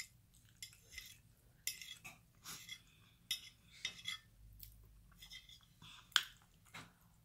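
A metal fork clicking and scraping against a plate while rice is scooped up, along with chewing. There are many short clinks, and the loudest is a little after six seconds in.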